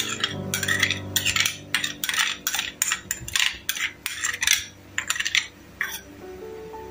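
Metal spoon scraping chili sauce out of a small ceramic bowl: about a dozen quick, irregular scrapes and clinks of spoon on ceramic.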